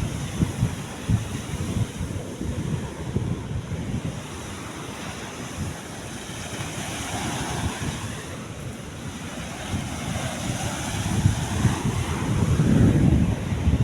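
Wind buffeting the microphone over the wash of sea waves, the gusts growing stronger near the end.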